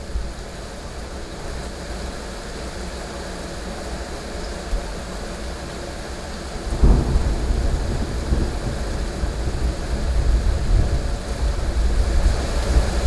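Heavy rain falling steadily; about seven seconds in, a sudden thunderclap breaks into a loud low rumble of rolling thunder that continues.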